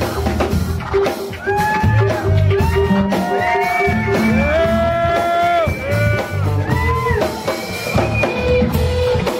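Live band playing: bass guitar, keyboard and drum kit under a melody line of held notes that slide from one pitch to the next.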